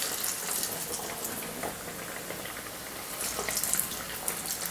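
Toor dal masala vadas deep-frying in hot oil in a kadai: a steady sizzle with scattered crackling pops, busier about three and a half seconds in.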